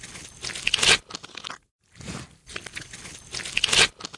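Designed alien shape-shifter sound effect: dense crunching and crackling that builds to a loud crunch, breaks off briefly, then repeats the same way.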